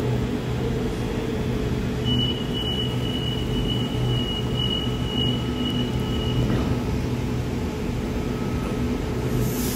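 Sydney Trains Waratah A set electric double-deck train standing at the platform, its equipment giving a steady low hum. A thin high tone is held for about four seconds in the middle, and near the end a hiss rises as the train gets ready to move off.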